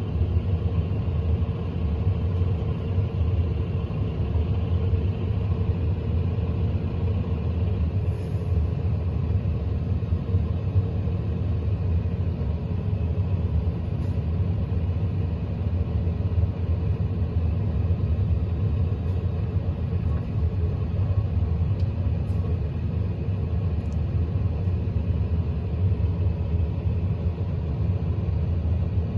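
Tractor engine running steadily while towing a set of Cousins field rollers, a continuous low rumble that does not change.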